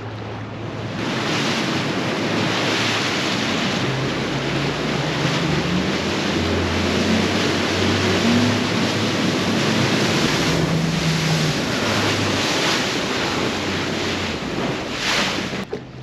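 Bass boat running at speed over choppy river water: wind buffeting the microphone and rushing water over the low drone of the outboard engine, whose pitch steps up and down. It starts about a second in and cuts off near the end.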